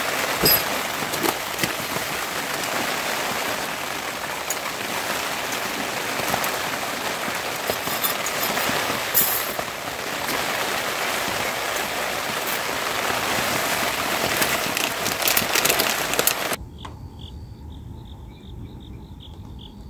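Steady rain with dense, crackly close drops. Near the end it cuts off suddenly, leaving insects chirping in a repeating pattern.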